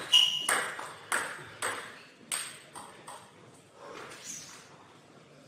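Celluloid-type table tennis ball bouncing about seven times, each click fainter than the one before.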